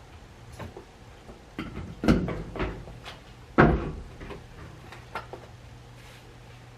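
Household knocking and banging: several light clicks and knocks, with two louder thuds about a second and a half apart, the first about two seconds in.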